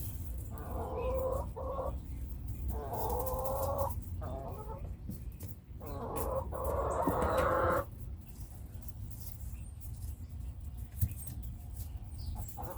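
Chickens clucking in three stretches of a second or two each, over a steady low rumble.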